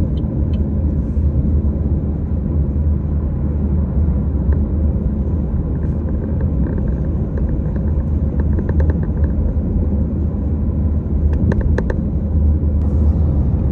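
Steady low road and engine rumble inside a Chevrolet Malibu cruising on the highway, with a few faint clicks about halfway through.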